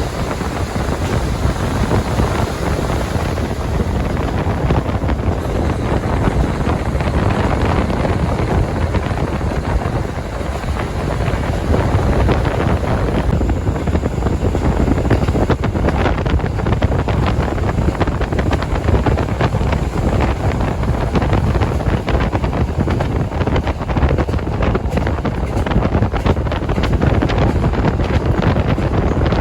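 KiHa 40 diesel railcar running along the line: steady engine and wheel-on-rail noise with wind rushing over the microphone.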